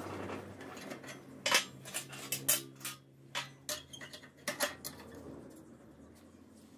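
Steel rebar clinking against a bench-vise bending jig and a steel lever bar as it is set in and bent by hand: a run of sharp metal clinks from about a second and a half in until about five seconds, over a faint steady low hum.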